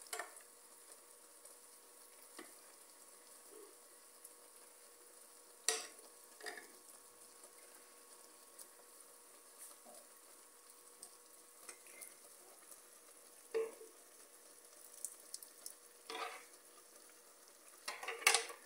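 Noodles cooking in a little water in an aluminium pot on a gas stove: a faint steady hiss, with a few short knocks and scrapes as blended spice is stirred in.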